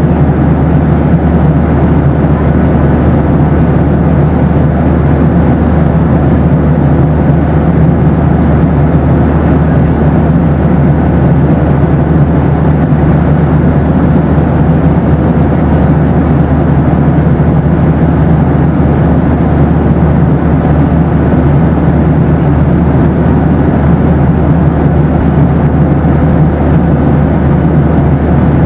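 Boeing 737 cabin noise: a loud, steady rush of engines and airflow, with a few faint steady hum tones under it and no change throughout.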